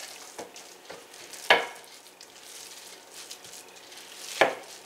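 Bare hands squeezing and kneading a wet salmon patty mixture of canned salmon, egg and breadcrumbs on a plate. There are two loud squelches, about a second and a half in and near the end, with fainter squishing between.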